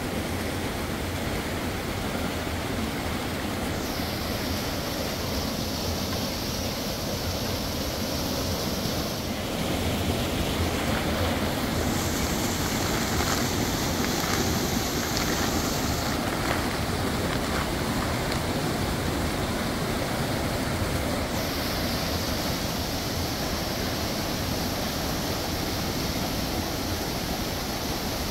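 A steady rushing noise with no distinct events. Its high hiss changes abruptly several times, as if the recording cuts between takes.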